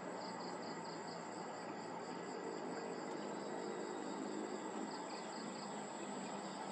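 Insects chirping in the reed bed: a steady high buzz, with short runs of quick chirps, about five a second, near the start and again about five seconds in, over a constant hiss.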